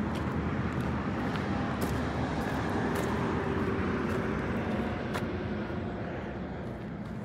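Steady rush and hum of highway traffic, easing off slightly in the last couple of seconds.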